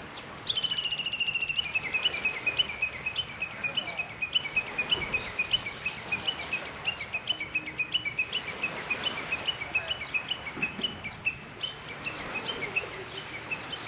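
A songbird calling: a quick high trill about half a second in, then a long run of rapid, repeated high chirps.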